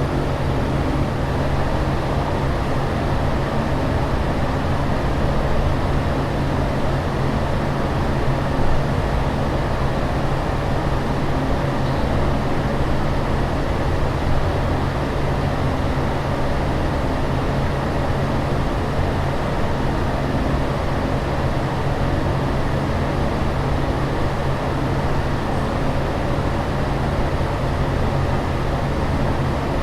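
Steady aircraft cabin noise in flight: an even rush of air over a constant low engine hum.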